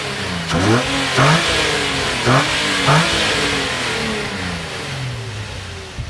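Nissan 350Z's 3.5-litre V6 revved in four quick throttle blips in the first three seconds, the revs then falling back and settling toward idle.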